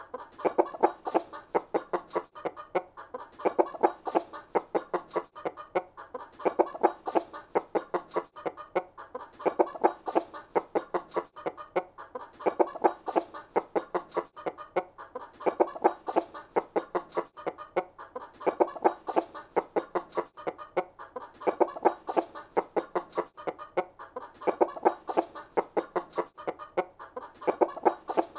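Baby chickens calling in dense strings of short, rapid notes, in clusters that swell and recur about every three seconds.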